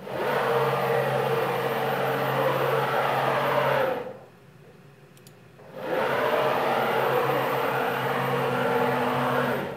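Avid Benchtop Pro CNC gantry making two rapid traverses at maximum rapid speed, X and Y moving together. The ClearPath servo motors and drive screws whir steadily for about four seconds on each move, with a pause of about two seconds between.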